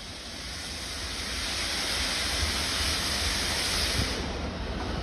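Bulleid Merchant Navy class steam locomotive approaching at speed with its train, a steady rushing noise growing louder.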